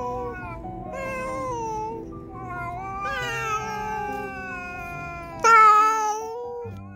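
Domestic cat yowling at another cat: drawn-out, wavering threat calls that bend up and down in pitch, with a louder, sharper yowl about five and a half seconds in.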